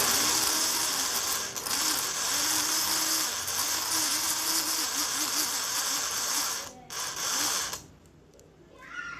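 Homemade electric cigarette-filling machine, its small adaptor-powered motor running steadily as it packs loose tobacco into an empty cigarette tube. It stops briefly about seven seconds in, runs again for under a second, then cuts off.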